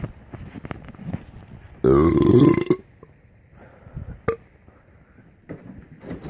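One loud, pitched belch lasting just under a second, about two seconds in, with a few faint clicks after it.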